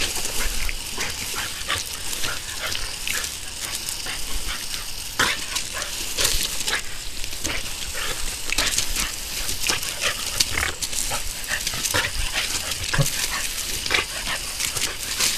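Garden hose spray nozzle hissing steadily as water hits gravel and grass, while a Boston Terrier plays in the spray making dog sounds. Many short, sharp sounds come through the hiss.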